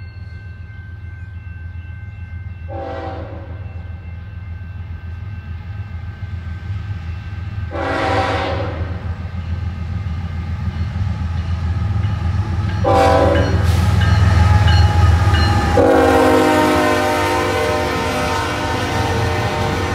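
Horn of a CN diesel freight locomotive sounding a series of blasts as the train approaches: a short one, a longer one, another short one, then a long blast held through the last few seconds. Underneath, the low rumble of the locomotives' engines grows louder as they draw near and pass.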